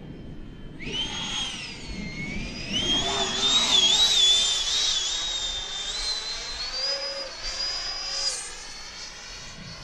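High-pitched whine of the Freewing F-15's 90 mm nine-blade electric ducted fan as the RC jet flies past, starting about a second in, wavering and climbing in pitch with throttle and fading near the end. A low rumble of wind on the microphone runs underneath.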